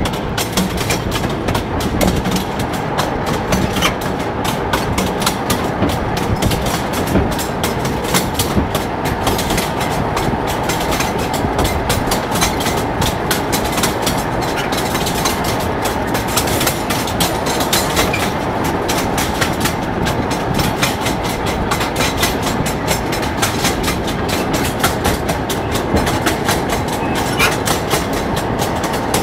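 Wheels of a rail draisine clattering over the track as it rolls along: a steady rumble with a dense run of clicks from the rail joints.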